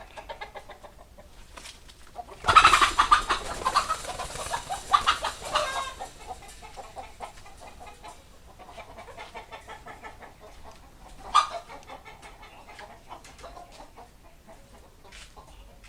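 Chickens clucking, with a louder spell of calling a few seconds in and one sharp, loud sound around the middle.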